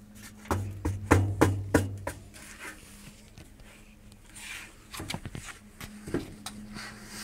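Knocks and taps on the metal platform of a hand truck as a toddler moves his sandalled feet on it. A quick cluster of knocks about half a second to two seconds in is the loudest part, with a low hum ringing under them, and a few single taps follow later.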